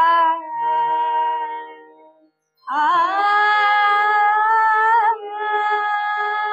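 A girl's voice singing long held notes in raga Bibhas over harmonium: one held note fades into harmonium alone, and after a brief pause a new note begins with a wavering rise about three seconds in and is held for about two seconds, the harmonium carrying on after it.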